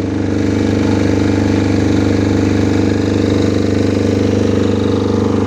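An engine idling steadily: an even, unbroken hum that gets a little louder during the first second and then holds level.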